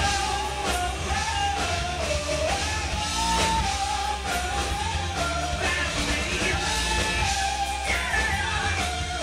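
Male singer performing live with a rock band: long held, wavering sung notes over electric guitar, heavy bass and drums.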